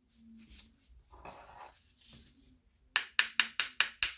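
Faint handling and scraping of small parts, then, about three seconds in, a screwdriver starts tapping rapidly and evenly on the small metal cover over the alternator's brushes, about six sharp taps a second, to knock the cover loose.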